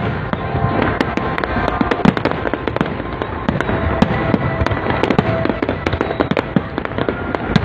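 Fireworks display: a dense, continuous barrage of aerial shells bursting, with many sharp bangs and crackles a second over a steady rumble.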